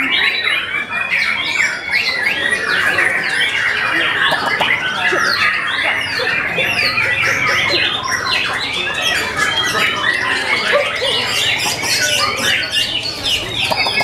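White-rumped shamas singing in a contest: a dense, continuous stream of rapid chirps, whistles and short glides, with several birds overlapping.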